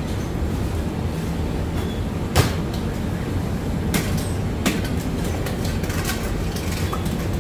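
Steady low mechanical hum of working bakery equipment, with a few sharp knocks and clatters from the bakers' work: one about two and a half seconds in, and two more around four and five seconds in.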